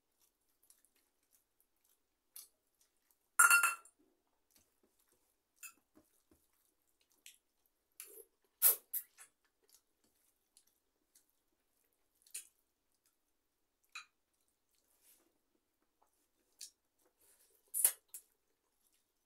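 Stainless steel plates and bowls clinking as rice is eaten by hand: scattered light clicks of fingers and food against the steel, with a ringing clink of steel on steel about three and a half seconds in and a few more sharp clinks later.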